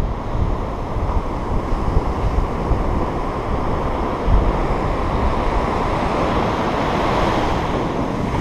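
Surf breaking and foamy water washing over the sand, with wind buffeting the microphone in gusty low thumps.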